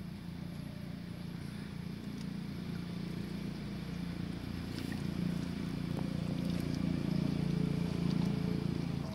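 A low, steady engine drone that grows louder over several seconds and drops off near the end, with a few faint clicks on top.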